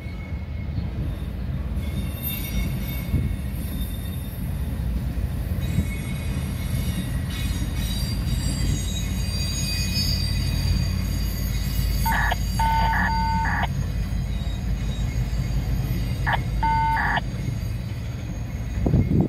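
Freight train tank cars rolling slowly past, a steady low rumble of wheels on rail. Twice, about twelve and sixteen seconds in, a short run of high pulsing beeps sounds over it, and there is a thump near the end.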